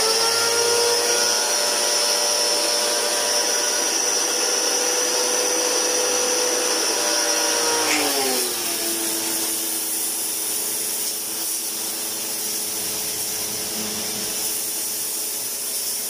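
Kawasaki HPB-302 electric pressure washer running while spraying water: a steady motor-and-pump whine over a hiss. About eight seconds in, the pitch drops to a lower steady note and the sound gets slightly quieter.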